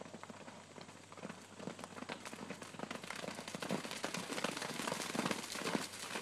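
Three horses galloping through wet mud: a rapid, irregular run of hoofbeats that grows louder as the horses come closer.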